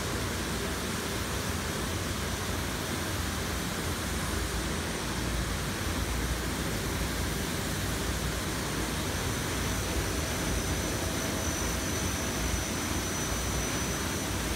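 Steady, even machinery whir of a pepper sorting and packing line, with conveyors and ventilation units running. A faint, thin high whine joins about ten seconds in.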